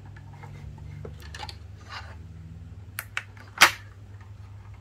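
Handling of a plastic USB-rechargeable LED tube lamp: light rustles and taps, then two sharp clicks about three seconds in and a loud plastic clack a moment later, around when the lamp is switched on. A steady low hum runs underneath.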